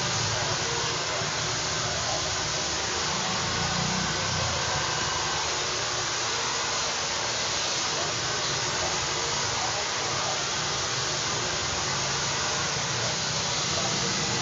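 Handheld hair dryer running steadily, blowing on hair being blow-dried.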